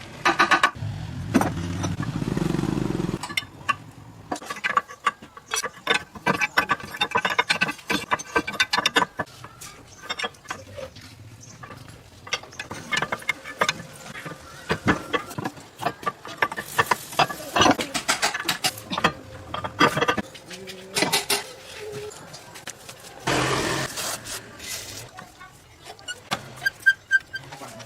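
Workshop clatter of tools and metal parts being handled: many quick clicks and knocks, with a low hum in the first few seconds and two short bursts of hiss later on.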